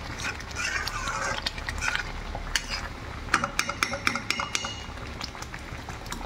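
Yellow slotted plastic spatula stirring thick paneer butter masala gravy in a metal kadai, scraping through the gravy. About halfway through comes a quick run of clicks and taps of the spatula against the pan.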